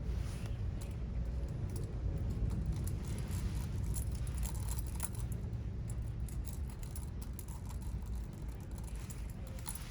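Metal tools and engine parts clinking and rattling in quick, irregular clicks over a steady low rumble.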